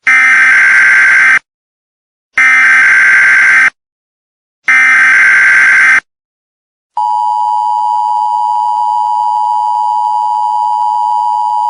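Emergency Alert System tones: three SAME header data bursts, each just over a second long with about a second of silence between them, then the steady two-tone EAS attention signal (853 and 960 Hz) starting about seven seconds in.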